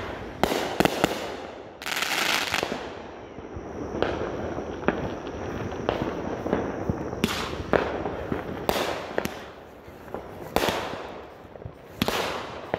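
Consumer fireworks going off: a string of sharp bangs from shells bursting overhead, mixed with longer hissing bursts.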